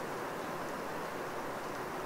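Steady wash of rainwater dripping from tree branches in a wood after a long rain, with a few faint separate drips.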